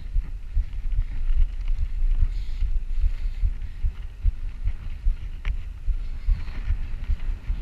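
Wind buffeting the microphone of a camera on a road bike at speed on a downhill run, an irregular low rumble over a fainter hiss, with one brief click about five and a half seconds in.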